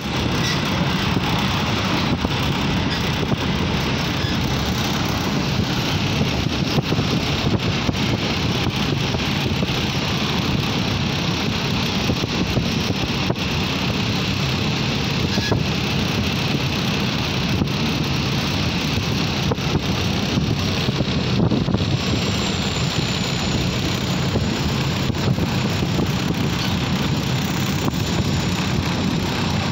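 Steady running noise of a passenger train heard from inside the carriage: a low rumble of wheels on the rails with a rush of air, and a few faint clicks.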